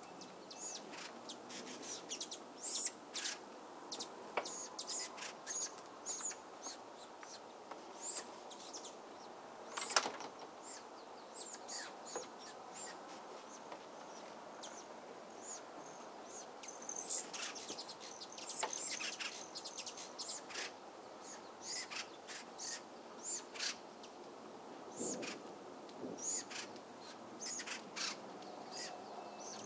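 Small birds chirping in short, high, irregular notes over a soft steady hiss, with one sharp click about ten seconds in.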